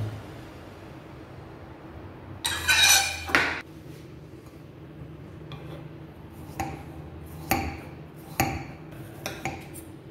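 Chef's knife slicing a peeled potato on a marble board, each cut ending in a sharp knock on the stone, about one a second through the second half. Earlier, about two and a half seconds in, a louder metallic clatter lasting about a second.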